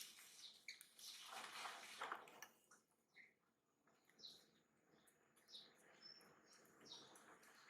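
Faint short, high chirps scattered through the second half, after a stretch of soft rustling noise in the first couple of seconds.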